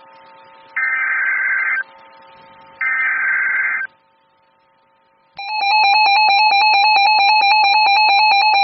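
NOAA Weather Radio Emergency Alert System activation for a tornado warning: two roughly one-second bursts of buzzy digital SAME header tones, then a short pause, then a loud steady alert tone that starts about five seconds in.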